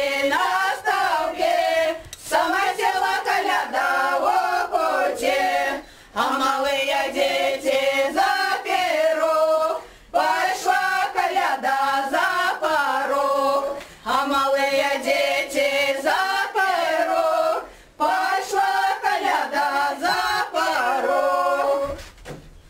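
A group of women singing a Belarusian folk song with no instruments, in phrases about four seconds long with a short breath between each. The singing ends near the end.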